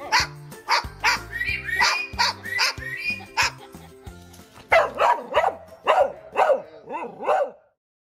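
A white parrot barking like a dog in short, sharp yaps, about two a second, then a louder, quicker run of barks in the second half that stops just before the end. A music track with low bass notes plays underneath.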